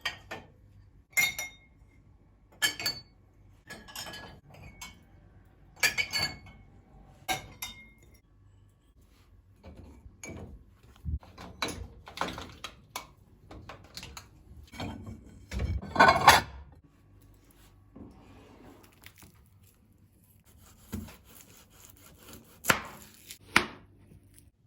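Kitchenware being handled: a series of separate clinks and knocks, some ringing briefly, with the loudest cluster about two-thirds of the way through.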